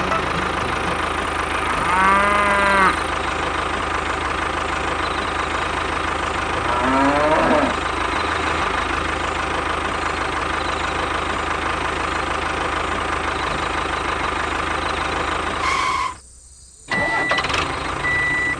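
A cow mooing twice, each call about a second long, over a steady engine-like running sound. The background cuts out briefly near the end, and there are two short high beeps.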